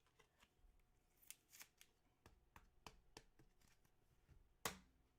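Trading cards being handled and flipped through: a string of faint, light clicks and rustles, with one louder click near the end.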